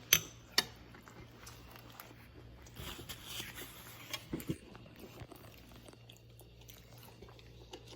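Someone eating close by: faint chewing and small mouth and food noises, with two sharp clicks in the first second.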